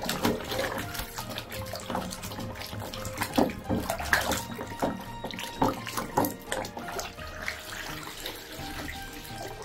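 Muddy water sloshing and splashing in a plastic tub as a hand churns it, in uneven strokes, over quiet background music.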